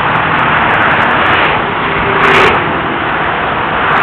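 Steady noise of highway traffic going past close by, with a brief louder rush about two seconds in.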